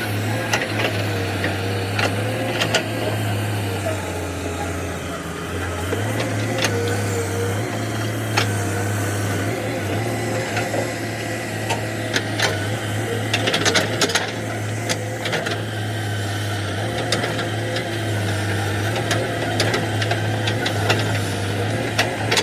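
Excavator engine running steadily, with scattered sharp clanks and knocks that come thicker in the second half.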